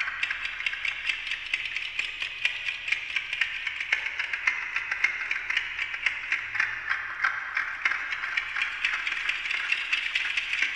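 Amplified ticking of a Westclox Silver Bell Monogram wind-up alarm clock, fed through a voltage-controlled digital delay and a bank of fixed delays, so that many delayed copies of each tick pile up into a dense, rapid clicking.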